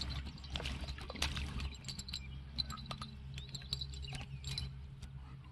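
German shepherd puppy playing with a big stick in mud: an irregular run of small clicks, snaps and wet patters over a steady low hum.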